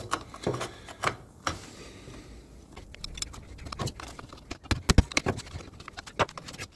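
Metal parts and tools clicking and clinking as a motorcycle clutch is being reassembled, with one heavier knock about five seconds in.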